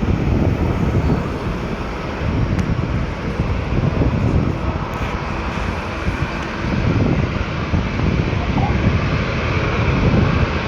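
Jet airliner engines rumbling steadily, growing a little louder near the end, with wind buffeting the microphone.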